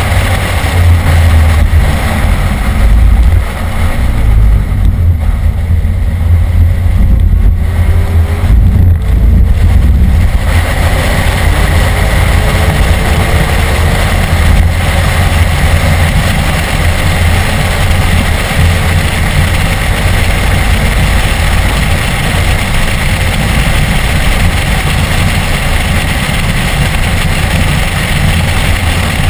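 BMW E46 M3's S54 straight-six heard from inside the cabin while lapping a race track, with a heavy low rumble under it. The loudness dips briefly about three seconds in, and the sound runs steadier after about ten seconds.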